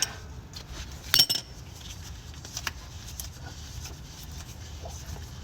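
A metal hand tool clinking sharply against metal once, about a second in, with a brief ring, then a few faint ticks of tools being handled.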